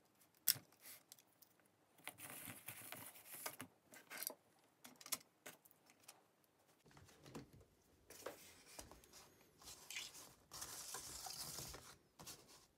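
Handling noise from plastic power-drill housings and a trigger switch being picked up, turned over and set down on cardboard: a sharp click about half a second in, then scattered clicks and knocks with stretches of rustling and scraping.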